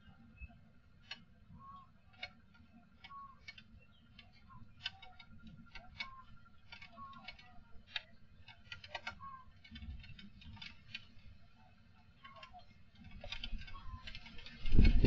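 Strong wind rumbling on a CCTV camera's microphone, with many irregular sharp ticks and rattles and short high chirps over it. Near the end a strong gust hits, much louder.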